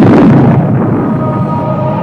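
A film sound effect of a giant video screen exploding as a sledgehammer smashes into it: a sudden loud blast that dies away into a rushing roar, with a steady hum coming in underneath.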